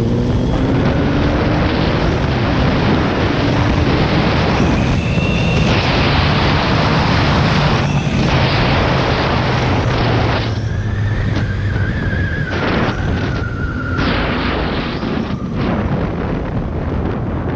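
Suzuki Hayabusa's inline-four engine with its stock exhaust, riding along at speed and largely buried under heavy wind buffeting on the microphone.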